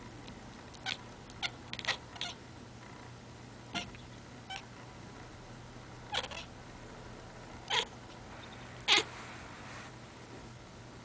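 A domestic cat making about a dozen short chirping calls at irregular intervals, the loudest about nine seconds in: the excited chirping a cat makes while watching birds.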